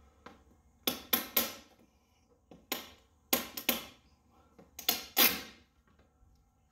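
Plastic retaining clips popping loose as the carbon fiber front fascia section of a C8 Corvette is pulled off the fender: about nine sharp snaps, several in quick groups of two or three. Clips on this piece are breaking as it comes away.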